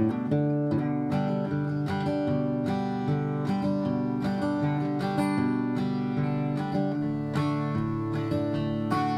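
Acoustic guitar music, picked and strummed chords at an even, steady pace.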